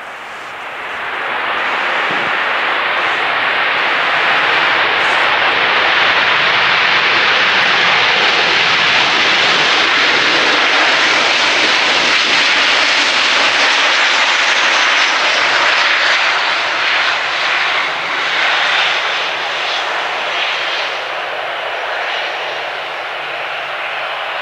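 Boeing 737-800's CFM56 jet engines running loud on the runway, a broad roar that swells about a second in, holds, and eases off somewhat near the end.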